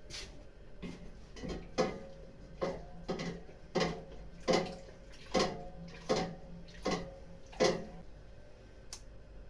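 A series of about a dozen knocks on kitchenware, each leaving a short ringing tone, roughly one every 0.7 s, stopping about eight seconds in.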